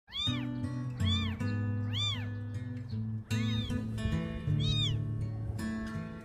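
A cat meowing five times, each a short call that rises and then falls in pitch, over background music with sustained low notes.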